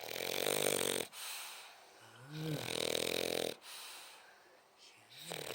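French bulldog snoring in its sleep: three loud snores about two and a half seconds apart, each starting with a short rising-and-falling whistle.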